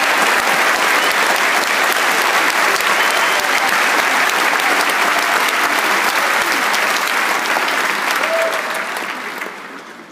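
Large concert-hall audience applauding steadily, the applause dying away near the end.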